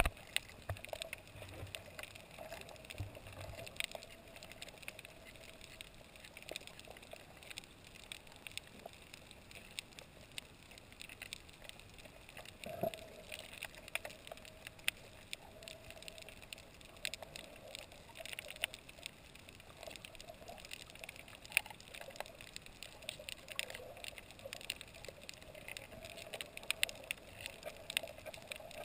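Muffled underwater ambience over a coral reef: a steady scatter of faint clicks and crackles over a low hiss, with a wavering mid-pitched drone underneath.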